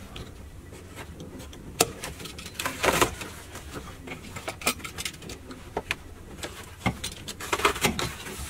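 Hand work on a car's carpeted floor trim panel: scattered clicks and knocks of a hand tool against plastic trim, with a longer scraping rustle about three seconds in and a cluster of clicks and scrapes near the end.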